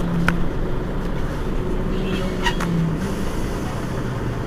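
Mercedes-Benz Citaro G C2 articulated bus idling at a standstill: a steady low engine hum.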